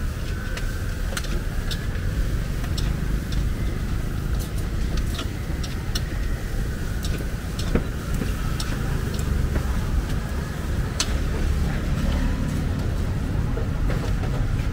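City street traffic: a steady low rumble of passing vehicle engines, with scattered short clicks and ticks.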